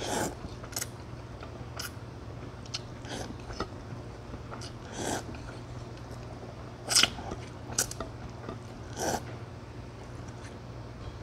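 A person slurping and chewing noodles from Jeju-style pork-broth noodle soup (gogi-guksu), in short wet slurps every second or so, the loudest about seven seconds in, over a steady low hum.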